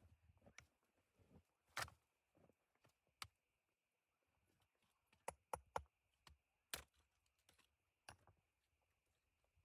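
Faint, irregular sharp clicks and taps, a dozen or so scattered, with the loudest about two seconds in and a quick cluster about five and a half seconds in.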